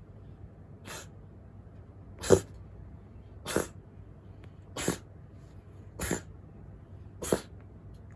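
A cat sneezing six times in a row, about one sneeze every second and a quarter. The first is faint and the second is the loudest.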